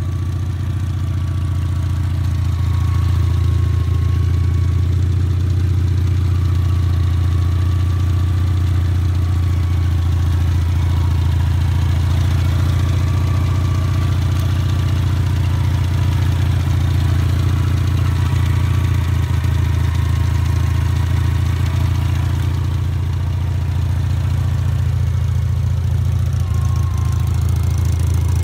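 Honda TN-V kei truck's 360cc two-cylinder engine idling steadily.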